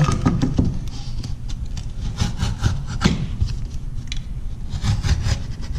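Snap-off utility knife scoring through the brown paper backing of a drywall piece: a run of irregular, short, scratchy cutting strokes.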